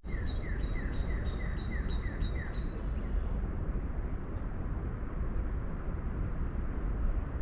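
A bird calls a quick series of about eight short, down-slurred notes over the first few seconds, then stops. Under it runs a steady low rumble of wind.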